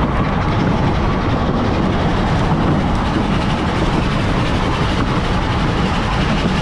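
Steady wind rumble buffeting the microphone of a camera carried on a moving bicycle, with road noise from the ride underneath.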